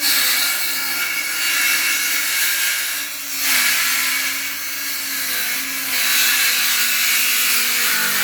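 Circular saw running and cutting through a wooden board, with brief dips in level about three and six seconds in.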